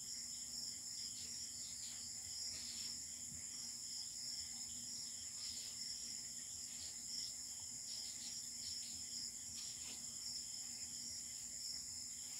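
Steady high-pitched chirring of crickets, with short faint scratches of a felt-tip marker writing on paper now and then.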